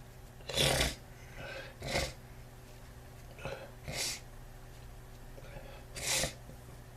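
A person's breathing: four short, breathy noises a couple of seconds apart, over a steady low electrical hum.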